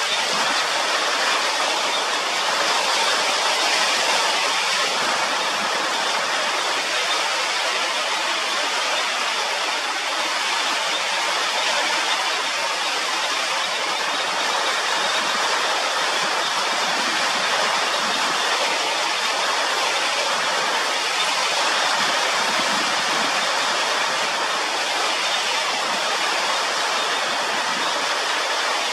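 Forest rain falling steadily: a continuous, even hiss with no breaks.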